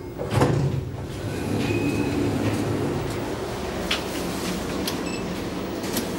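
Low steady rumble of a railway station heard through the open elevator doors, with a loud knock about half a second in and a few sharp clicks later; the last click comes as a button on the elevator car's panel is pressed near the end.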